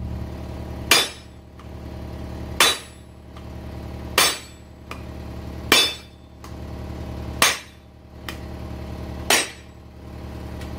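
Hammer blows on metal: six sharp, ringing strikes about every one and a half to two seconds, driving an old wheel bearing out of an ATV hub.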